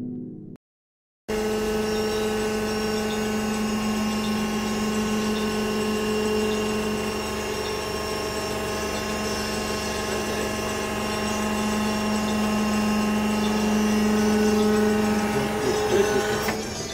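Kapok baling press machinery running with a steady, even-pitched mechanical hum. It starts about a second in and drops away near the end.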